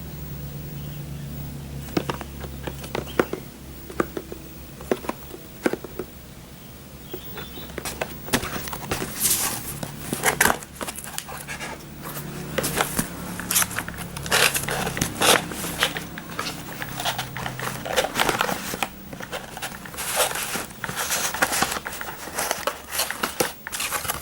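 Packaging being handled and opened: scattered clicks and crinkling of plastic and cardboard, growing much busier after about eight seconds.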